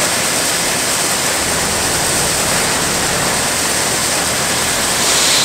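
Portable grain auger running and shelled corn pouring steadily from its spout into a hopper-bottom grain trailer: a continuous, even rushing noise.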